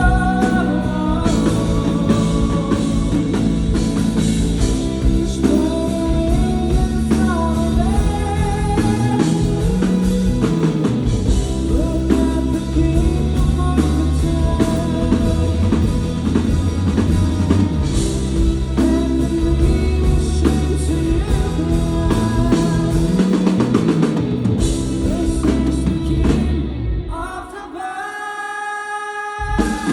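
Rock band playing live: sung lead vocal over drum kit, bass and electric guitar. Near the end the drums and bass drop out briefly and the music gets quieter, then the full band comes back in.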